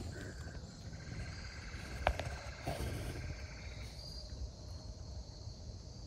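Faint steady insect calling, a cricket-like chorus, with a single short click about two seconds in.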